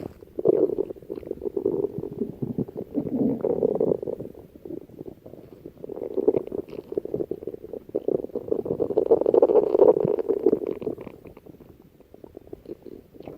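Stomach growling: long rumbling bouts that come and go, with short lulls between them and a quieter stretch near the end.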